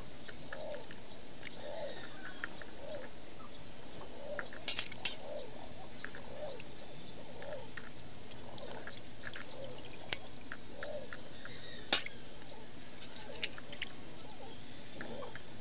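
A knife scraping the skin off boiled ube held over a basin of water, with scattered drips and light clicks and a few sharper knocks, the loudest about twelve seconds in. An animal calls over and over in the background, short low calls about every half second.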